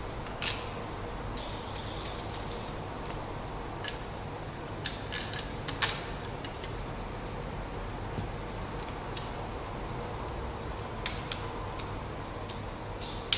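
Scattered light clicks and metallic clinks of aluminium antenna rods and plastic director clips being handled and fitted on the antenna boom, several in quick succession around the middle, over a steady low hum.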